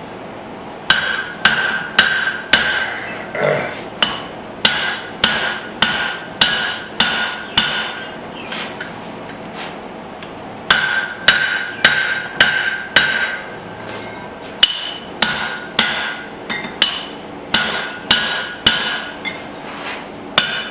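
Hand-hammer blows on a steel punch being driven through the eye of a hot spring-steel hatchet head on an anvil, about two a second, each blow ringing. The blows come in two runs with a pause of about two seconds near the middle.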